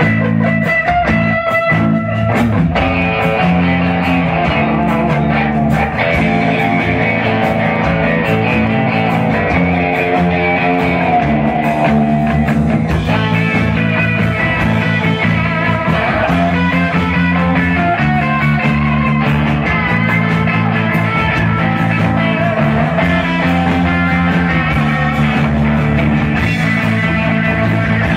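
Hard rock band playing live at full volume: distorted electric guitars over bass and drums, heard from the audience.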